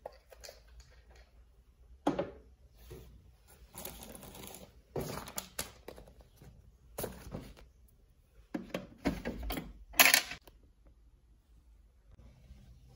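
A series of irregular short clicks, knocks and rustles, about six separate bursts, the loudest about ten seconds in.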